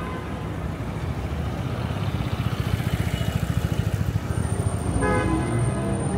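Street traffic: a steady low rumble of passing cars that swells and flutters midway. A brief, faint car horn sounds about five seconds in.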